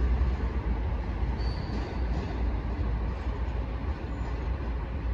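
Passenger train coaches rolling along the track with a steady low rumble.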